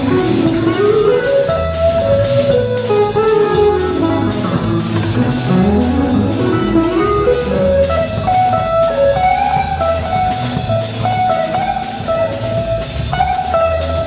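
Live band playing an instrumental break: a lead electric guitar solo, its notes running up and down in quick phrases, over a drum kit and a steady low bass line.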